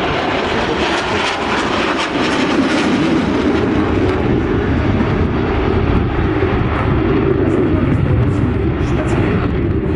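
Saab JAS 39 Gripen fighter jet's single Volvo RM12 turbofan engine, a loud, steady jet noise.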